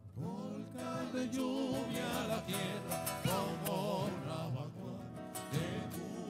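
Live Argentine folk music: acoustic guitars strummed while a man sings into a microphone, his voice held on long notes with vibrato.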